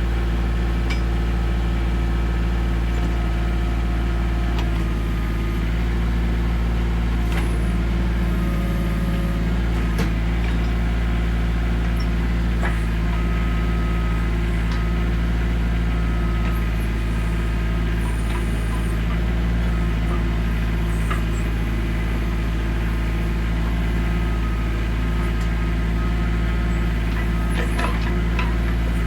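A heavy engine running steadily at constant speed, with a few short knocks and clanks over it.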